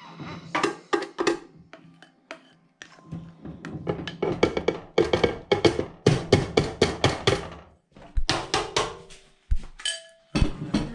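Plastic spoon scraping and knocking against a mixing bowl as dry flour is emptied into a bread machine pan: a fast run of taps in the middle, then a few heavier thunks near the end.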